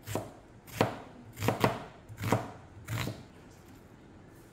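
Chef's knife slicing through an onion onto a plastic cutting board: about six chops, irregularly spaced, stopping about three seconds in.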